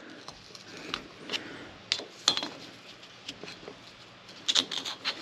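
Steel screwdriver blade clicking and scraping against the metal housing of a hydraulic swivel joint as the old top ring is twisted and pried out of its bore. Scattered light clicks, with a quick cluster near the end.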